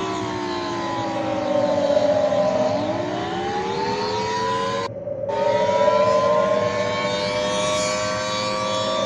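Warning siren sounding several tones at once over a steady lower tone. The tones glide down for about two and a half seconds, then rise slowly again. The higher tones cut out briefly about five seconds in.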